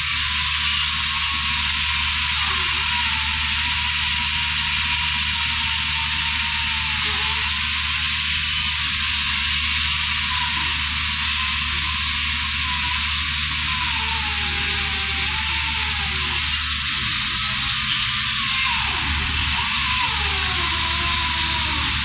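Pneumatic chain saw running at full throttle as its chain cuts wet through a concrete block: a steady, unbroken hissing noise of exhaust air and chain grinding, with a low hum beneath.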